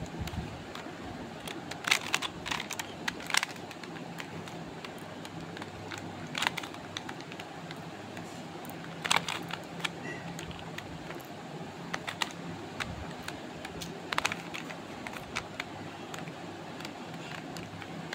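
Plastic Rubik's cube being turned by hand: irregular clicks and clacks of its layers, in small clusters every few seconds with pauses between, over a steady low hum.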